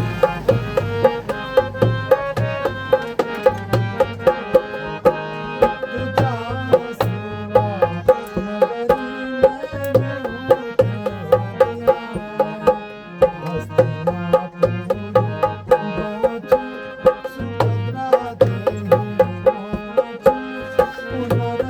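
Music: a hand drum playing a steady rhythm under a sustained melody.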